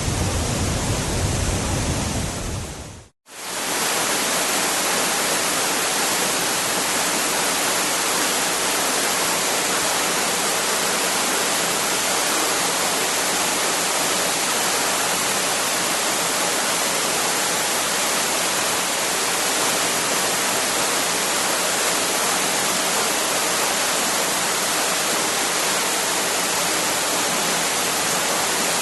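Waterfall's rushing water, a steady, even hiss. About three seconds in it briefly fades out to silence and returns with less bass.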